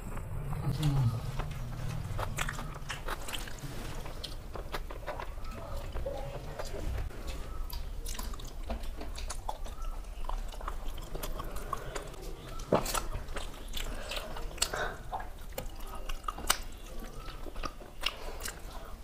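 Two people eating rice and curry with their hands: chewing and wet mouth smacks, with frequent sharp clicks, one louder about two-thirds of the way through.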